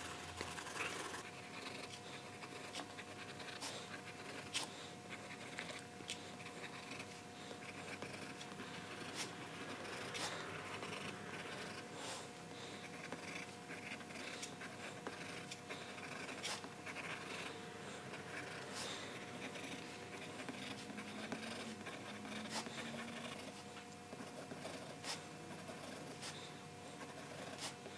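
Graphite pencil scratching and tapping on drawing paper as small spots are dotted on, in irregular short ticks. A faint steady hum runs underneath.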